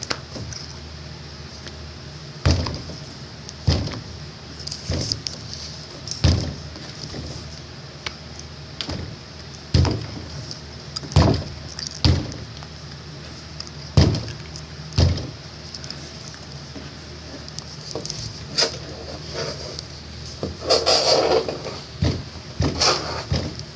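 Rustling and scratching inside a closet: irregular scrapes and knocks every second or two over a steady low hum, turning into a denser, busier rustle near the end.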